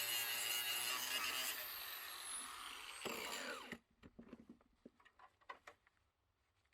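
Handheld grinder running on a truck frame during cleanup. It is switched off about a second and a half in, and its whine falls as it spins down, stopping just before four seconds in. A few light clicks and knocks follow.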